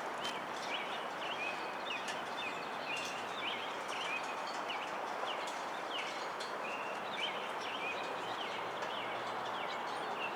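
Small birds chirping in short, irregular calls over a steady outdoor background hiss.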